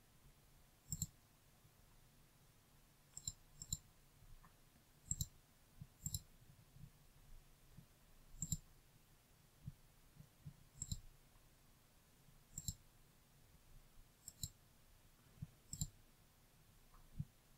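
Faint computer mouse clicks, one every second or two, with a few in quick pairs, each with a small dull knock under the tick.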